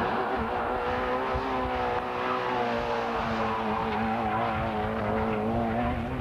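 Lada Samara rally car's engine running hard at high revs as the car drives through a corner and past, its note wavering with small rises and dips.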